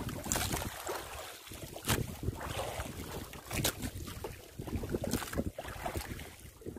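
Wind buffeting the microphone over waves lapping and slapping against a small outrigger boat's hull and bamboo outriggers, with a few sharper slaps.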